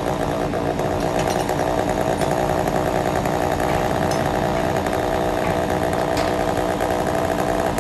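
An engine running steadily at a constant speed, with a fast even firing pulse.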